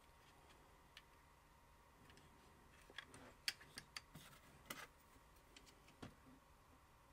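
A few faint clicks and taps of hard plastic toy parts being handled and set down on a cutting mat, clustered in the middle, with near silence around them.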